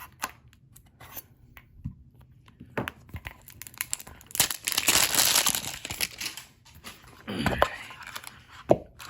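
Plastic wrapping on a Pokémon card tin or its booster packs being torn open and crinkled by hand: a long tear about four seconds in, a shorter one near the end, with light clicks and taps of handling around them.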